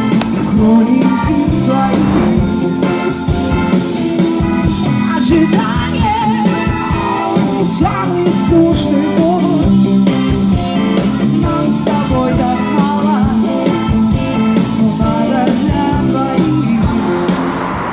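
Background rock song with a sung vocal over a steady beat; the music drops away near the end.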